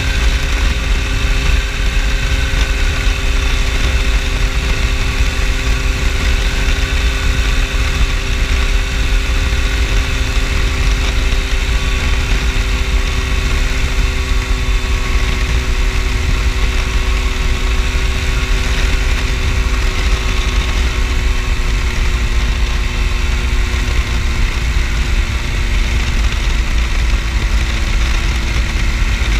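Phantom X1 ultralight's two-stroke engine running steadily in flight, its drone easing slightly lower in pitch over the descent toward the field, under heavy wind rush on the microphone.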